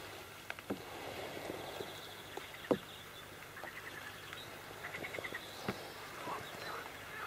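Frogs calling across the marsh in short rattling trills, several times, over quiet outdoor background, with a few soft knocks, the sharpest about two and a half seconds in.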